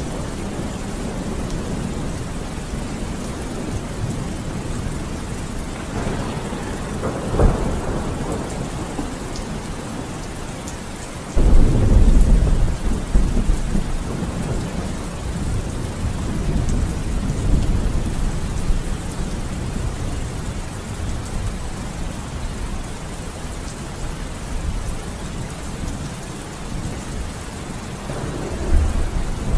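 Thunderstorm recording: steady rain with rolls of thunder. A loud, low thunder rumble starts suddenly about eleven seconds in, with smaller rumbles before it, later on, and again near the end.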